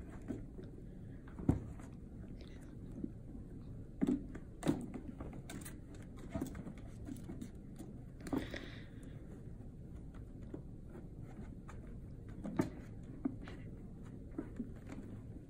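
Kittens scuffling against a toy plastic wrestling ring on carpet: scattered soft thuds and knocks as they bump the ring, its posts and ropes, the loudest about a second and a half in and again around four to five seconds in.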